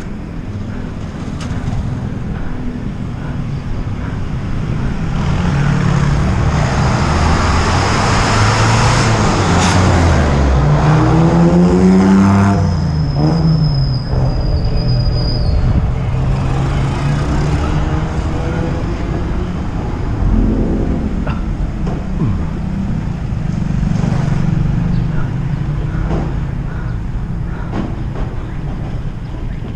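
Road traffic heard from a moving bicycle over a steady low rumble. About ten seconds in, a motor vehicle passes close with its engine rising in pitch, and a thin high squeal follows for a few seconds. A second vehicle goes by about twenty seconds in.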